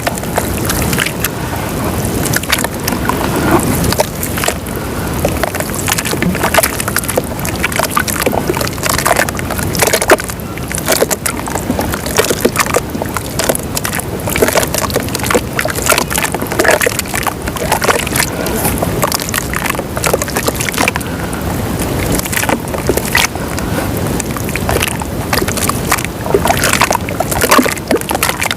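Lumps of white dirt crumbling and dissolving in water, giving a continuous watery sloshing with many small crackles and pops.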